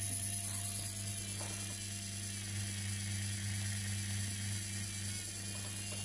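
Brushed washing machine motor turning slowly at the lowest speed its tachogenerator-fed speed regulator can hold, a steady low hum with a fine, fast mechanical rattle.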